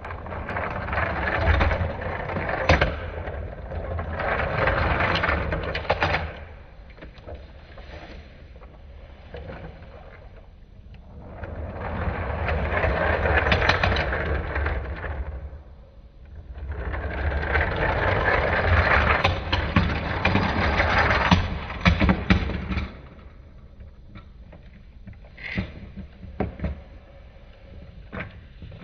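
Die-cast toy cars rolling across a whiteboard in several long rattling stretches, with a few sharp clacks as the cars knock into each other.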